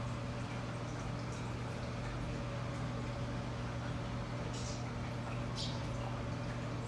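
A steady low mechanical hum over a faint even hiss, with two brief soft rustles about four and a half and five and a half seconds in.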